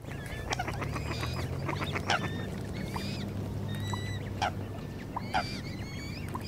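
Waterfowl calling: a busy mix of short honks and high, gliding chirping calls, over a steady low background hum.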